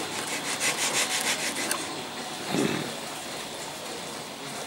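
Metal engraving stylus scratching lines into a hardened lacquer surface in quick rasping strokes, several a second, stopping after about a second and a half. A single low thump follows about two and a half seconds in.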